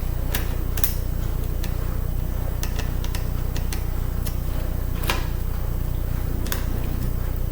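Scattered sharp metallic clicks and taps, about ten at irregular intervals, as small screws are worked out of a laptop optical drive's metal casing with a small screwdriver; the loudest comes about five seconds in. A steady low hum runs underneath.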